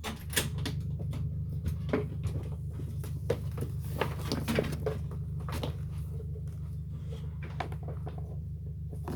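Irregular clicks and knocks over a steady low hum.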